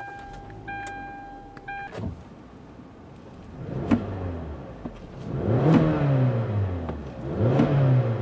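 2012 Kia Sportage's 2.4-litre four-cylinder engine running, then revved twice, each rev rising and falling away, about two seconds apart. It opens with two steady electronic warning beeps from the car.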